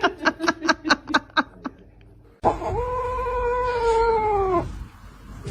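A cat making a rapid run of short, clipped calls, about seven a second. After an abrupt cut, one long yowl of about two seconds follows, holding its pitch and sagging at the end.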